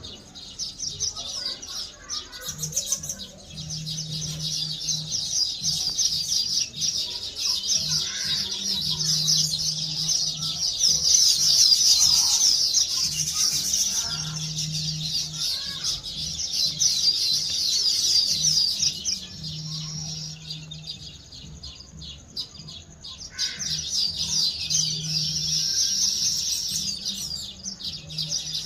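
A colony of small nest-weaving birds chirping: a dense, unbroken chorus of rapid high twittering from many birds at once, loudest around the middle.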